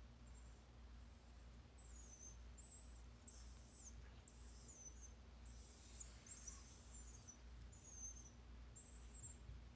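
Italian Greyhound whining in about ten short, faint, very high-pitched squeaks, several falling in pitch. It is a sign of pain from intervertebral disc disease.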